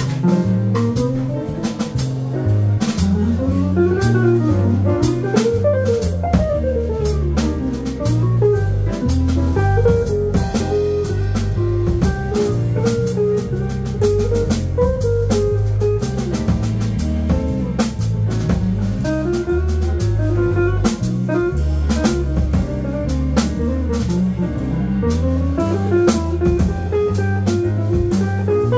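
Live small jazz band playing: an archtop electric guitar carries a single-note melody line that climbs and falls, over an electric bass line and a drum kit keeping time on the cymbals.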